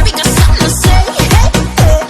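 Loud electronic dance music with a fast, heavy kick-drum beat and sliding synth or vocal lines.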